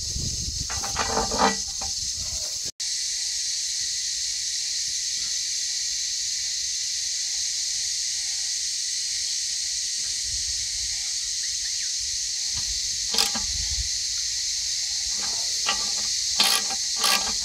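A steady high-pitched hiss, with short metallic clicks and taps near the start and several more in the last few seconds as the nuts on a sight-glass backing plate are fitted and tightened by hand.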